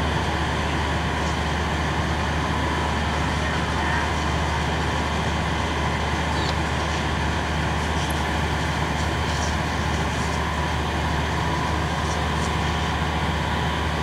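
Steady low engine drone under a constant hiss, with a few faint ticks in the second half.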